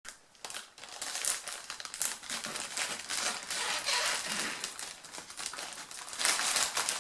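Packaging crinkling and rustling as it is handled and unwrapped, a continuous run of small crackles.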